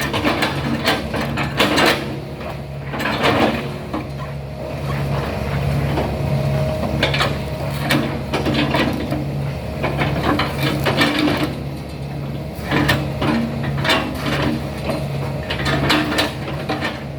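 Excavator's diesel engine running steadily, with frequent knocks and clanks from the machine working.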